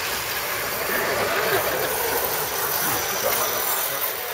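Scale RC crawler trucks driving past over dry leaves: their electric motors and geartrains whine, the pitch rising and falling with the throttle, over a steady hiss.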